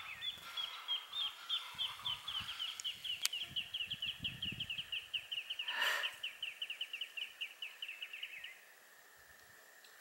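A bird calling a long, even series of short, high chirps, about five a second, which stops about eight and a half seconds in. A brief noisy burst cuts across it about six seconds in.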